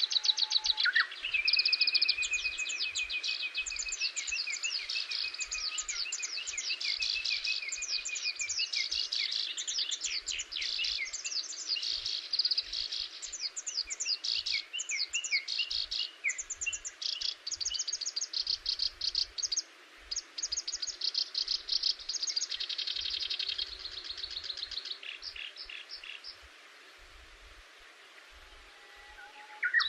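Several birds singing and calling, with rapid trills and repeated chirps and a long wavering whistled phrase in the first several seconds; the song thins out and goes quieter near the end.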